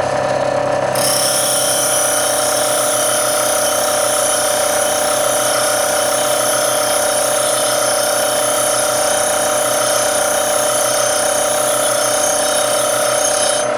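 8-inch variable-speed bench grinder running at its lowest speed: a steady motor hum, with a high grinding hiss that starts about a second in and stops just before the end as a steel drill shank is ground on the wheel.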